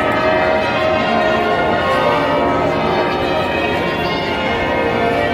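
St Paul's Cathedral's church bells ringing a continuous celebratory peal, many bells sounding one after another and overlapping without a break.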